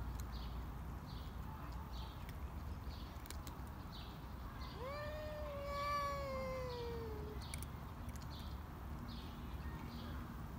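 A cat's drawn-out yowl at another cat in a standoff, the hostile caterwaul of two cats that do not get on. It is one long call of about two and a half seconds, starting about five seconds in and sliding slowly down in pitch. Short high chirps repeat about twice a second in the background.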